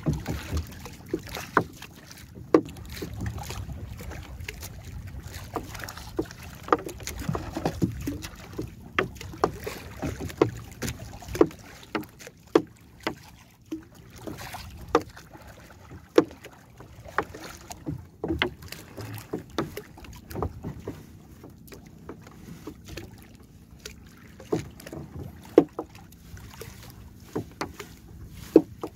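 Irregular sharp knocks and taps on the wooden hull of a paddled outrigger canoe as a fishing net is paid out over the side, over a low wash of water and wind.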